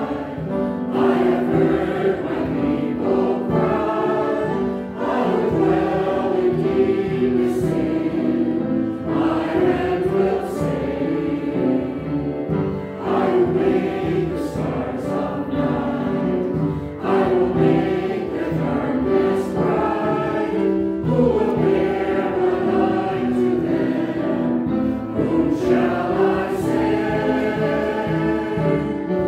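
Choir and congregation singing a hymn together, line by line with short breaths between phrases.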